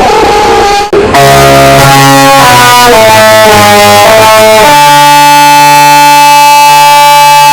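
Extremely loud, distorted music played as an 'earrape' soundboard clip. A held tone cuts off about a second in, then a run of chords changes about every half second and settles into one long held chord.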